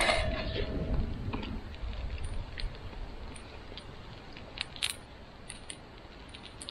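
A metal fork clinks against a cast-iron skillet right at the start, ringing briefly. After that comes a steady faint sizzle of meat frying in the pan over the wood fire, with scattered light clicks and crackles.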